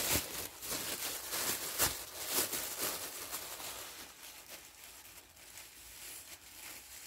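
Soil trickling and pattering into a plastic bottle, with light plastic rustling. It is busiest in the first three seconds and then thins out to a faint hiss.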